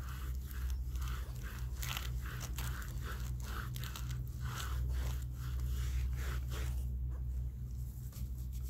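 A damp cloth rag rubbing and scrubbing a wheelchair wheel, wiping it clean in repeated strokes, about two or three a second, which stop about seven seconds in.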